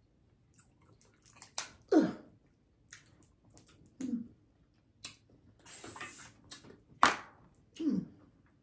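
A person eating crab legs close to the microphone: wet chewing and smacking, with a few sharp clicks and a short hissing slurp about two-thirds of the way in.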